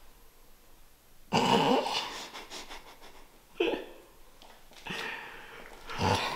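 A person gasping and breathing heavily in three loud bursts, the loudest about a second in.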